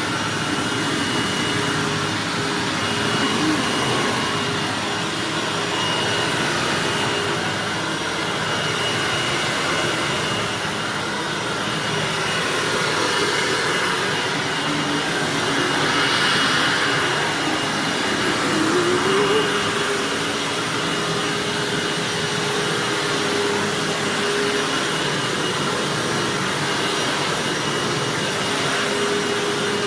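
Hoover WindTunnel bagged self-propelled upright vacuum cleaner running steadily on carpet, with a steady high whine over the motor's rush. The sound swells and eases slightly in level as the vacuum is worked.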